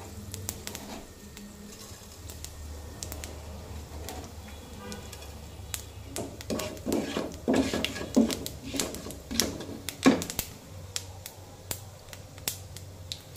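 Panch phoron (whole five-spice seeds) tempering in hot oil in a nonstick frying pan: irregular clicks and pops, thickest from about six to ten seconds in, over a steady low hum. A wooden spatula stirs the seeds near the end.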